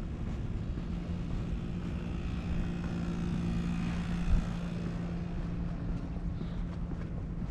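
Steady low hum of air-conditioner outdoor units running, loudest about three to five seconds in, over low wind rumble on the microphone. A single short knock about four seconds in.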